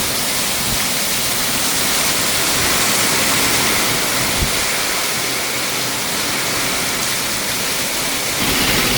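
Rain falling steadily: a dense, even hiss of many drops.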